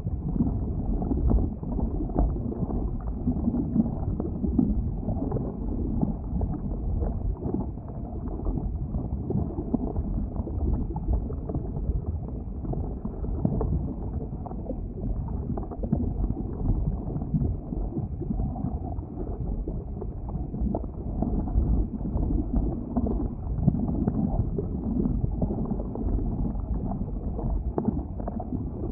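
Boiling lava: a steady, dull low rumble with dense, irregular bubbling and gurgling pops.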